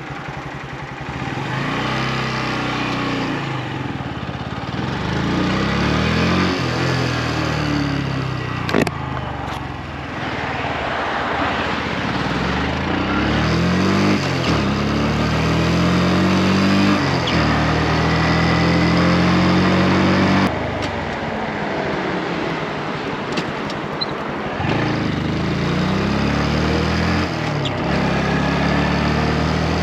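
Motorcycle engine pulling away and accelerating, its pitch rising and dropping back at each gear change several times, with wind rushing past the microphone.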